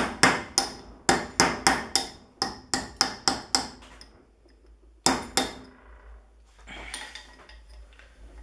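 Small hammer tapping metal on metal, striking a drift against the side cover of a BMW E36 rear differential to break its sealed cover loose. A quick run of light, ringing taps, about three or four a second, stops after about three and a half seconds; two more taps follow about five seconds in, then a light clatter.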